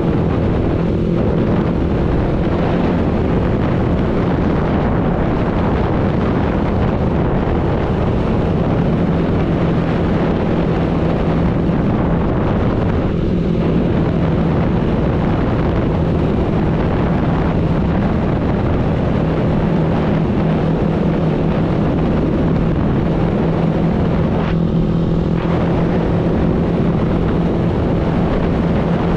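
Motorbike engine running steadily while riding, a constant low drone under rushing wind on the microphone and road noise.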